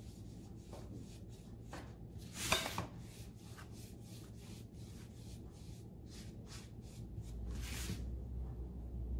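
Round wax brush rubbing neutral wax onto a painted MDF frame in quick, repeated short strokes, with two louder swishes, about two and a half seconds in and near the end. A low hum comes in near the end.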